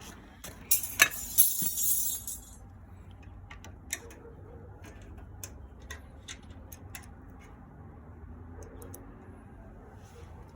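Clinks and knocks of small metal parts or tools being handled: a loud clatter in the first couple of seconds, then scattered light clicks over a steady low hum.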